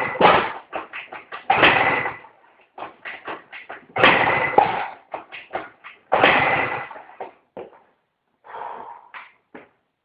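Polini 70cc big-bore two-stroke engine of a 2005 Yamaha BWS/Zuma scooter being cranked over in short bursts about every two seconds, without catching. It won't start.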